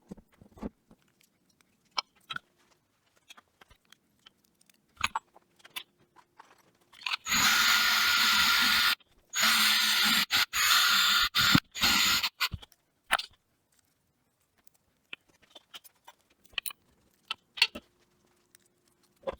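Small workshop handling sounds: scattered clicks, knocks and scrapes as small parts and tools are worked by hand. Near the middle, a loud hissing tool runs in two bursts of about two seconds each, starting and stopping abruptly.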